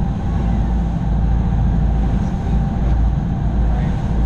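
Tour boat underway, heard from inside its cabin: a loud, steady low rumble of the engine and of water rushing past the hull.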